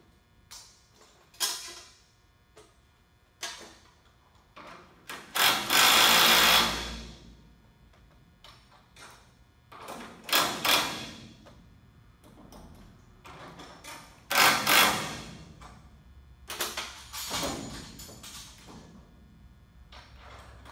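Handheld power tool, a drill or driver, run in several short bursts, the longest about a second and a half, with a few sharp knocks in between, while bolts are driven on tarp-system brackets.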